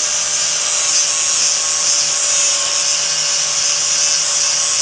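Electric angle grinder running steadily with its disc held against the end of a PVC pipe, grinding a taper onto the pipe's edge: a constant motor whine under a loud, hissing grind.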